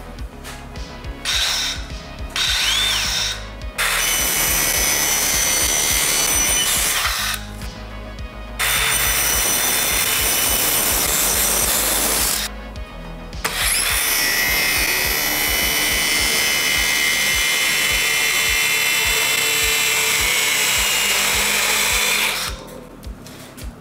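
DeWalt compact circular saw fitted with a standard toothed blade, spinning up in a few short bursts and then running loud through three long cuts, in foam board and then a wooden board, with a steady high whine over the cutting noise. It stops about two seconds before the end.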